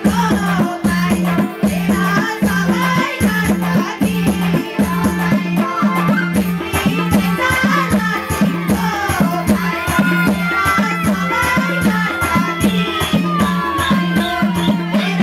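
Nepali folk song sung by a group of women into microphones, over a fast, steady drumbeat with rattling percussion.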